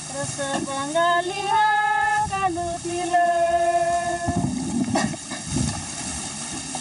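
A high voice singing a song with long, held notes. A low rumble sounds under it for a second or so, about four seconds in.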